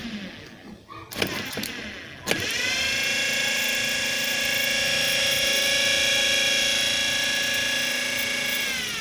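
12-volt DC motor run straight off a battery: a few sharp clicks as the wire is touched to it, then about two seconds in it spins up with a rising whine, runs at full speed with a steady high whine, and drops in pitch as it winds down near the end.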